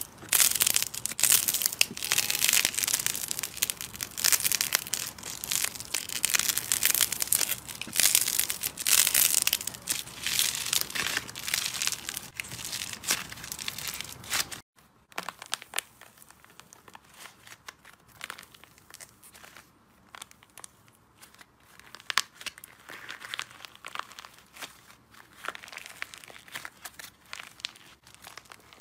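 Slime squeezed and kneaded by hand, crackling and popping with dense small clicks. About halfway through it cuts abruptly to a quieter passage of sparser clicks and sticky tearing as a thicker slime is stretched and folded.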